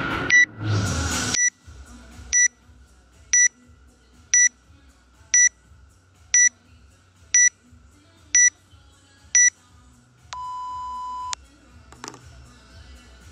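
Workout countdown timer beeping: ten short high beeps one second apart, then a longer, lower beep signalling the start of the workout. Music plays briefly at the start.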